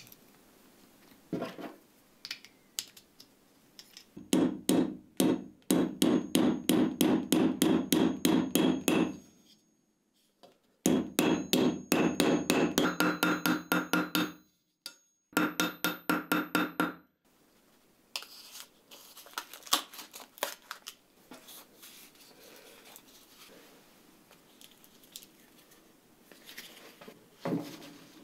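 Small hammer tapping a metal pin through the steel ferrule of a wooden knife handle resting on a steel bench block: three runs of rapid, even taps with short pauses between, followed by quieter scattered knocks.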